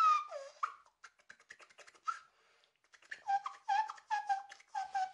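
Inward tooth whistle scratch by a beatboxer: a high whistle drawn in through the teeth and chopped into short notes that dip and glide in pitch, like a record being scratched. A gliding whistle opens it, then a couple of seconds of soft mouth clicks, then from about three seconds in a quick run of short whistled notes.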